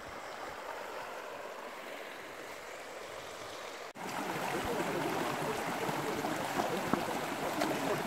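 Shallow, rocky creek rushing over stones, a steady rush of water. About four seconds in it cuts to a louder, closer rush.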